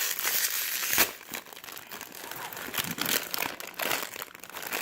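Plastic blind-box bag crinkling as it is handled and opened, with a sharp crackle about a second in.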